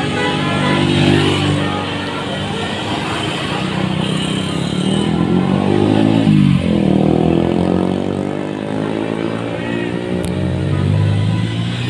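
Road traffic: engines of vehicles driving past, one passing close about halfway through.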